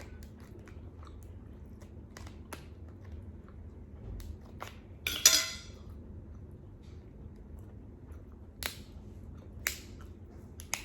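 Scissors snipping at a hard slipper lobster shell: scattered sharp clicks, with one loud crackling crunch about five seconds in and two more sharp snaps near the end.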